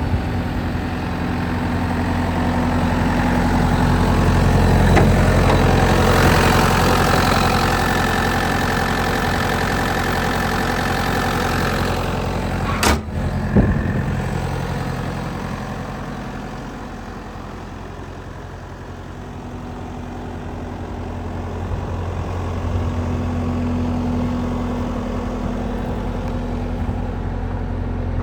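Bobcat T190 turbo diesel skid steer loader running, its engine rising in speed and loudness over the first several seconds, then easing back and picking up again near the end. Two sharp metallic knocks come about halfway through.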